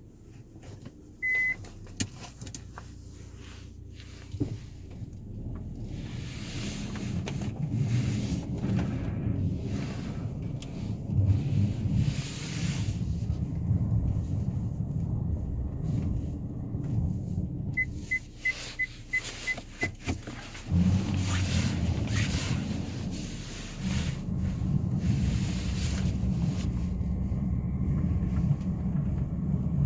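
Hyundai Creta pulling away and driving slowly, engine and road noise building after a few seconds. A short electronic chime sounds about a second in, and a quick run of six beeps comes about eighteen seconds in.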